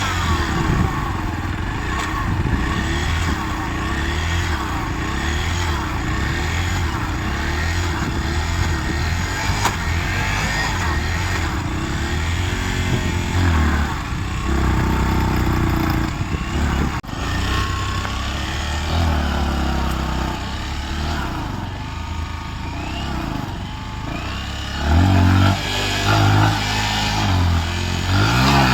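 Vehicle engine running hard, its pitch rising and falling again and again as it is revved, growing louder near the end.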